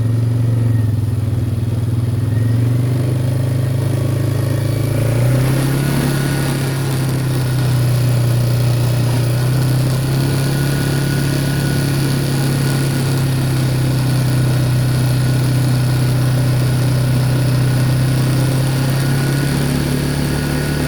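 ATV engine running under way, its note rising a little about five seconds in and then holding steady.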